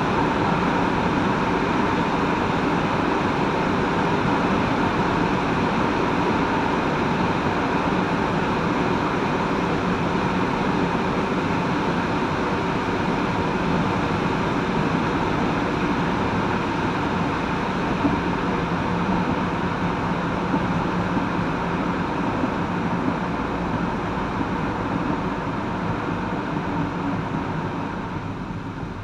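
Steady driving noise from a vehicle on the road: tyre roar and engine hum with a faint steady tone, easing off over the last couple of seconds.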